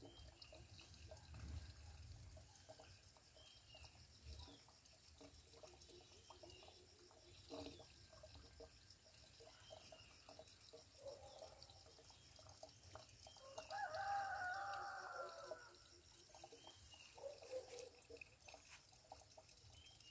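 Faint rooster crowing once, a single call of about two seconds a little after the middle, with a few short clucks before and after it.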